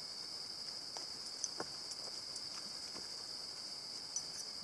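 Steady, high-pitched chorus of singing insects, with a few faint sharp ticks and crackles.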